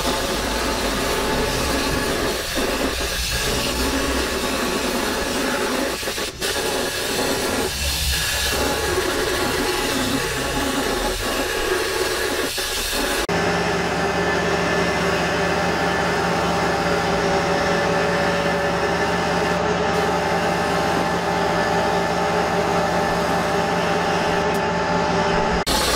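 Steady hiss of compressed air from a cup-topped spray gun coating parts, with a machine hum underneath. About halfway through the sound changes abruptly to a steadier hiss over a constant low hum.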